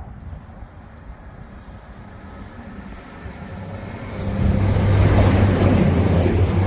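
CrossCountry Voyager diesel train approaching and running through the station without stopping. A low engine drone and the rush of the train build steadily, then grow sharply louder about four seconds in as it comes past.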